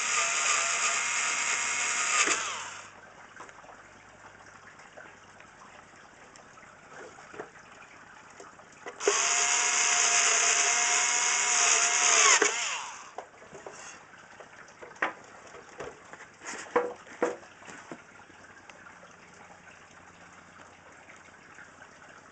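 WORX cordless screwdriver running as it drives screws into a sheet-steel case. It is already running at the start and stops after about three seconds, then runs again for about three and a half seconds from about nine seconds in. A few light clicks follow.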